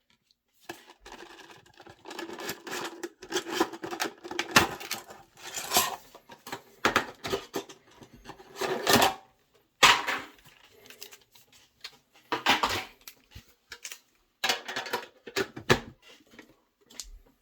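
A metal Pokémon card tin being handled and opened, with its contents taken out: irregular clatter, clicks and rustling of tin and packaging, with several sharper knocks.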